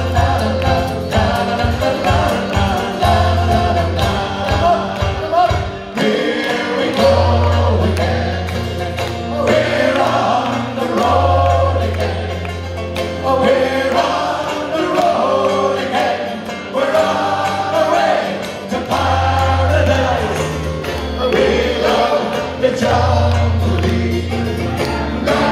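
Live Irish folk band playing an upbeat song on banjo, acoustic guitar and keyboard, with several voices singing together. Deep bass notes pulse in short beats for the first six seconds or so, then are held long.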